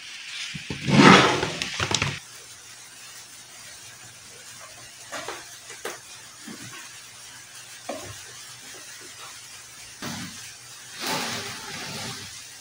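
Handling noise: a loud rustle or scrape in the first two seconds, scattered light clicks, and more rustling near the end, over a faint steady low hum.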